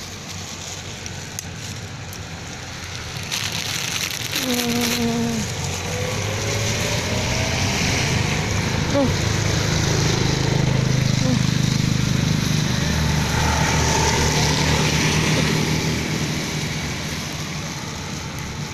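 Steady rain falling on wet ground, growing louder through the middle and easing off again.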